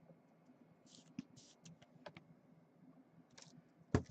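Faint, irregular clicks and taps of typing on a computer keyboard, with one sharper knock just before the end.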